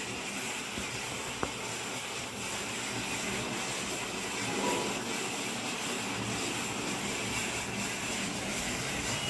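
Steady background hiss with a single faint click about one and a half seconds in.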